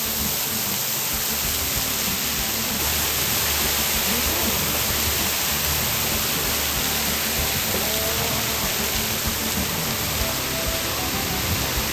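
Steady rushing of a waterfall pouring down a rock wall into water, a dense even hiss that starts suddenly and holds at one level.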